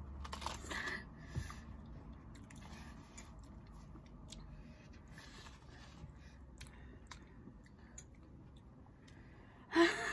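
Eating sounds of spicy Samyang instant noodles: a mouthful slurped and chewed, with faint clicks of a metal spoon on a plate, then a sudden sharp gasp near the end.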